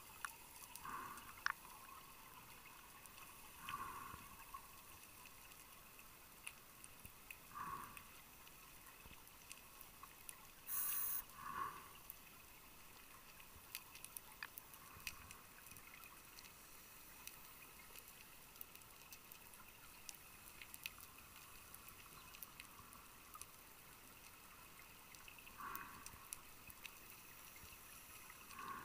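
Faint underwater sound of a scuba diver breathing through a regulator: short bubbling bursts every three to four seconds, a louder hiss about eleven seconds in, then a long gap before the bursts return near the end. Scattered faint ticks run underneath.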